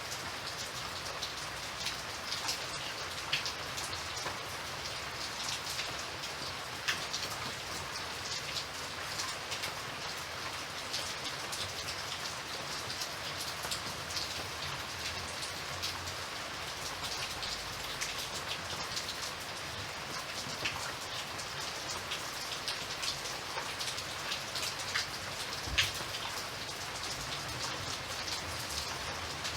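Steady rain falling, a dense patter of drops with scattered louder individual drips.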